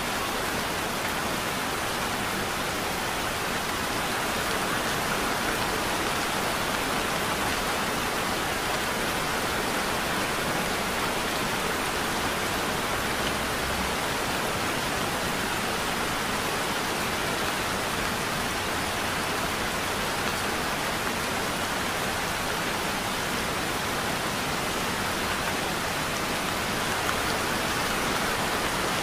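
Heavy rain falling steadily, an even hiss with no single drops or other sounds standing out.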